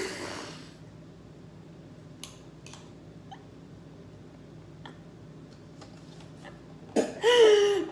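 A short loud breathy vocal burst, then a few faint light clicks of a metal spoon against a small glass baby-food jar, and near the end a loud drawn-out vocal groan.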